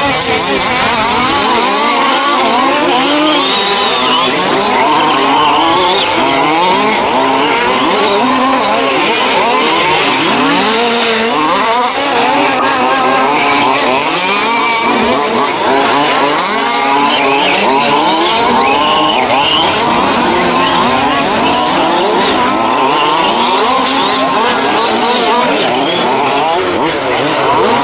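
Several 1:5-scale RC off-road race cars' small two-stroke petrol engines revving up and down together, their pitches overlapping and rising and falling constantly as the cars accelerate and brake around the track.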